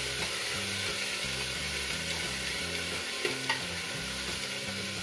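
Chopped vegetables sizzling in hot oil in an aluminium pressure cooker while a ladle stirs them, with a brief clink of the ladle on the pot about three and a half seconds in.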